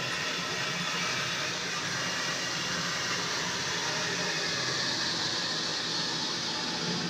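Water rushing steadily through a Delaney flushometer valve into the toilet, a continuous even hiss. The valve is stuck in a constant flush with its newly replaced diaphragm.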